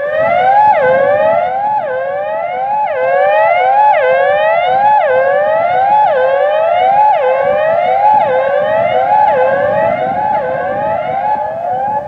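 University of Central Arkansas E-Class outdoor warning system sounding an electronic siren tone through its speaker arrays: a loud rising sweep that drops back and repeats about one and a half times a second, stopping near the end. This is the alert tone of a weekly system test.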